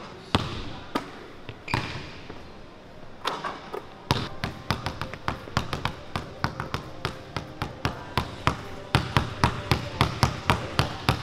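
Basketball bouncing on a hardwood gym floor. A few scattered bounces at first, then from about four seconds in a quick, steady low dribble of about three to four bounces a second.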